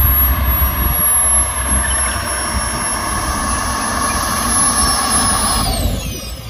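KingTech K-180 model jet turbine in a Viper Jet running at low power with a high, steady whine while the model taxis. Near the end the whine falls steeply in pitch and the sound drops as the turbine spools down.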